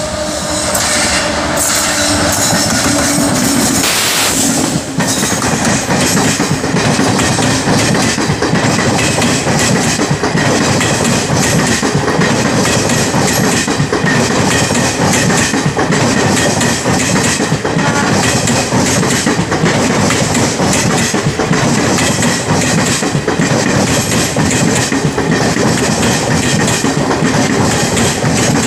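Express passenger train passing close by at high speed behind a WAP-7 electric locomotive: a loud, steady rush of coach wheels on the rails with clickety-clack over the joints. A steady hum sits under it for the first four to five seconds, then stops.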